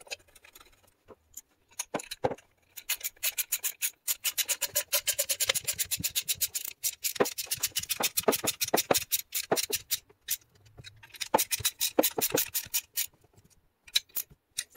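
Screwdriver driving the muffler screws into a Stihl MS260 chainsaw: long runs of rapid, even clicking, with a break of a second or two partway through.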